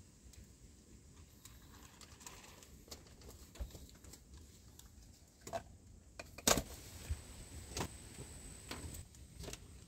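Scattered small clicks and knocks, as of objects being handled, with one sharper knock about six and a half seconds in.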